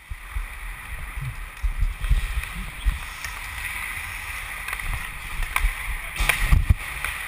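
Ice hockey play heard through a helmet-mounted GoPro's waterproof housing. Skates on the ice make a steady muffled hiss with irregular low thumps. Sharp clicks of sticks on the puck cluster near the end.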